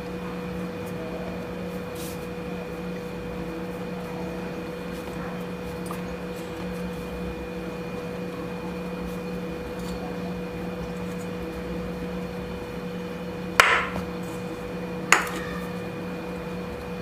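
Two sharp knocks of kitchen utensils against a hard surface, about a second and a half apart near the end, over a steady background hum.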